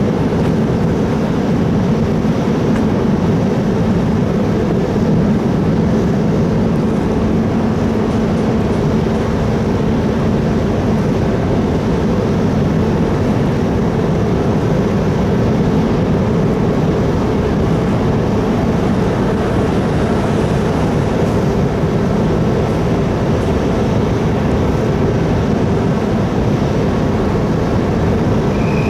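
Steady drone of the ferry Orange 7's engines and machinery, a low hum that holds level without change.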